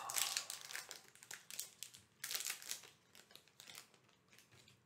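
Foil wrapper of a Yu-Gi-Oh booster pack crinkling and crackling as it is opened and handled. The crackles are densest over the first second and a half, come again in a burst a little after two seconds, then fade to a few faint rustles.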